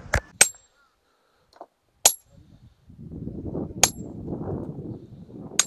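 Sharp metallic hammer strikes with a bright ring, a quick pair at the start and then single blows a little under two seconds apart, typical of a steel hammer breaking stone by hand.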